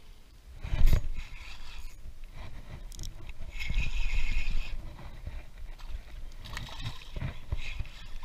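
Close rubbing, scraping and knocking from the angler's arm and clothing brushing against the microphone while he reaches down to land a fish by hand. There is a sharp knock about a second in and a longer scrape a little before the middle.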